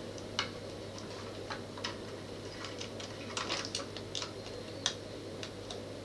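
Small irregular clicks and taps of a 35mm film cassette and its film leader being handled and fitted into the open base of a Leica IIIc screw-mount camera, about a dozen in all, over a faint steady hum.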